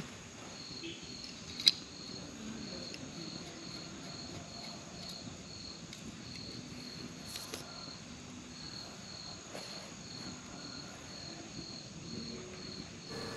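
A cricket chirping steadily, about two short high chirps a second, with a single sharp click a couple of seconds in.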